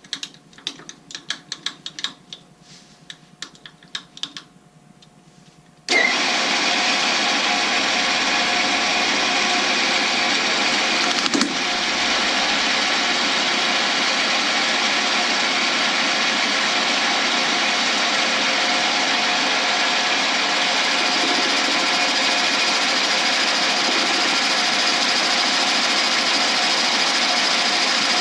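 Scattered light clicks and knocks for about six seconds, then a lathe starts abruptly and runs steadily with a loud, even whir, turning the shifter-knob blank.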